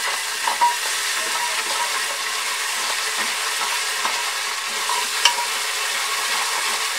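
Ginger-garlic paste and sliced onions sizzling in hot oil in a pressure cooker while a spatula stirs them. A steady frying hiss, with a few light scrapes and clicks of the spatula against the pot and one sharper click about five seconds in.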